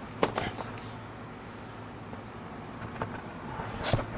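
A housecat sneezing: a short, sharp, hissy sneeze near the end, the loudest sound here. A sharp click comes just after the start, and a steady low hum runs underneath.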